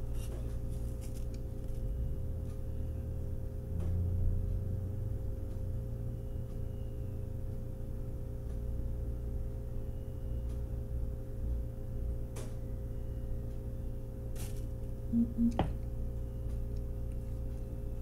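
Steady low electrical hum of room tone, with a few faint clicks and taps from hands handling a small diecast car and an acrylic paint marker.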